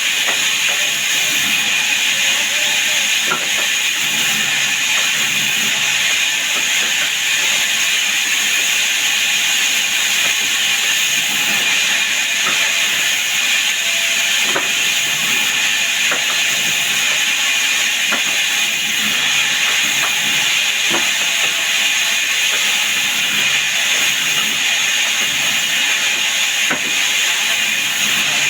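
Power saw running steadily, a constant high whine over a loud even hiss, with a few faint clicks scattered through.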